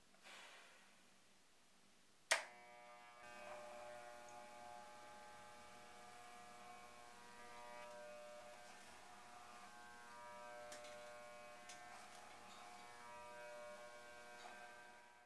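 Wahl corded electric hair clipper switched on with a sharp click about two seconds in, then buzzing steadily as it is run through long hair on the head.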